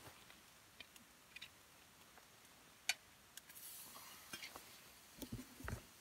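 Faint clinks and clicks of a utensil against metal camp cookware as pieces of cooked meat are moved back into the pot, the sharpest click about three seconds in. A short rustle follows, with a few low thumps of handling near the end.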